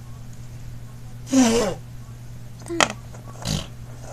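A girl's short, loud non-word vocal sound about a second and a half in, breathy with a voice in it, like a sneeze or an exasperated huff. A brief voiced blip and a breathy puff follow near the end, over a steady low hum.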